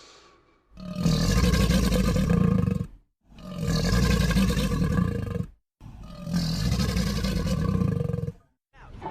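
Dinoshark creature roar sound effect, the same deep roar played three times in a row, each about two and a half seconds long with brief silences between. The tail of a hiss fades out just before the first roar.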